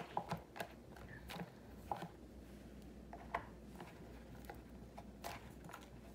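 Faint, scattered soft taps and rustles of hands flexing a silicone half-sphere mold and popping hardened chocolate shells out of it.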